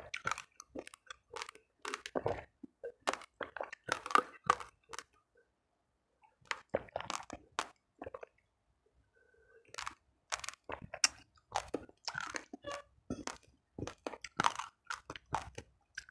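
Raw uncooked rice grains crunched and chewed close to the microphone in sharp, irregular crunches, falling quiet twice for a second or two in the middle.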